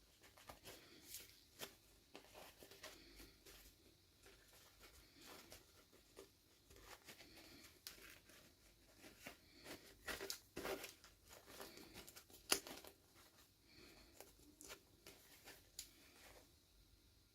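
Quiet handling of packaging: faint crinkling and tearing with scattered small clicks, the sharpest click about twelve and a half seconds in.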